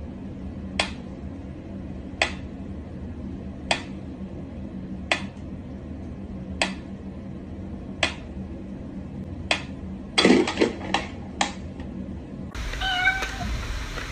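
Mechanical pendulum metronome ticking slowly, one sharp tick about every one and a half seconds, followed about ten seconds in by a quick run of louder knocks and rattles.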